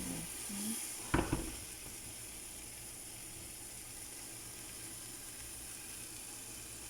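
Meat with spices and tomato paste sizzling steadily in a cooking pot, with one sharp knock about a second in.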